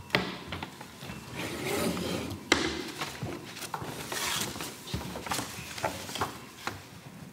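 Wooden kamishibai stage boxes being handled: several sharp knocks and clicks of the hinged wooden doors and box, the loudest about two and a half seconds in, with paper picture cards sliding and rustling in between.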